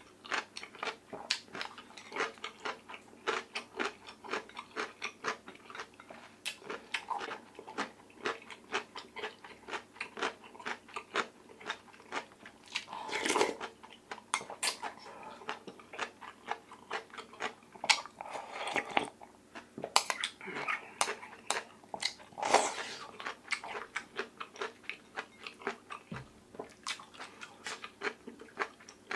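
Close-miked eating sounds: a person chewing a mouthful of oyster rice soup, with rapid wet, smacking clicks several a second and a few louder, longer mouth sounds around the middle.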